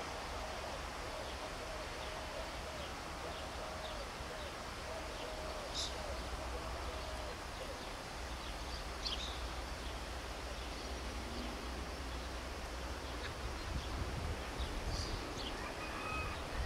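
Scattered short bird chirps over a steady low rumble and hiss. A faint wavering hum runs through the first half.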